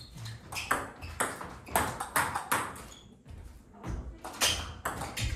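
Table tennis ball being hit back and forth in a rally, sharp clicks of ball on bat and table about twice a second. There is a short pause about three seconds in, then the hits resume.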